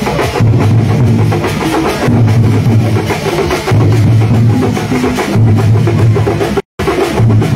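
Loud drum-led music with a deep bass pattern repeating about every one and a half seconds and busy percussion over it; the sound cuts out for a moment near the end.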